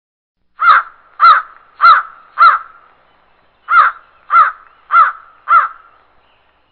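A crow cawing: eight loud, harsh caws in two runs of four, with a short pause between the runs.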